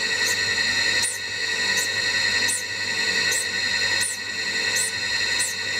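Surface grinder running, its wheel grinding the flank of a high-speed steel Acme thread-cutting tool: a steady high whine with a short hiss recurring about every three-quarters of a second as the tool passes under the wheel.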